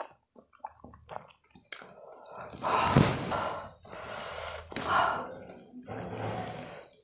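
Soft wet chewing of noodles, then from about halfway a run of loud, breathy gasps and blown-out breaths, four or five in a row, as the eater reacts to the chilli heat of 2x spicy Korean hot noodles.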